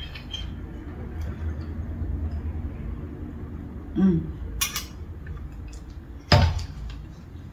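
A metal spoon scraping and clinking in a ceramic mug of chili, with small clicks throughout. Near the end the mug is set down on a glass-topped table with one sharp knock, the loudest sound.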